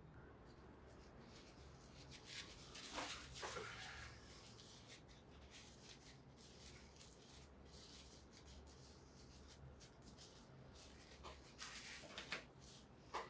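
Near silence: room tone with faint, scattered small rubs and clicks, a little louder about three seconds in and again near the end.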